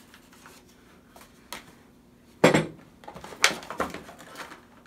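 Stiff plastic battery packaging clicking and clattering as Milwaukee M18 batteries are pulled free and handled, with one loud knock about two and a half seconds in as a battery is set down on the wooden table, then a run of smaller clicks.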